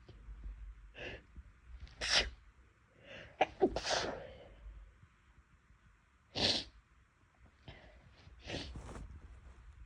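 A person sneezing about four times, each a short sharp burst a second or two apart, with smaller breathing sounds in between.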